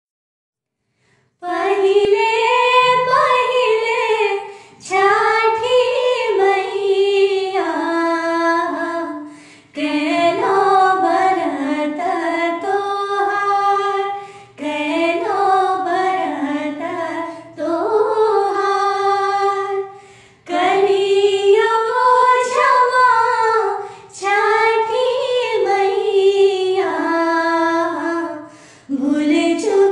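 Two women singing a Chhath devotional folk song together. The singing starts about a second and a half in and runs in phrases of a few seconds, with short breaks between them.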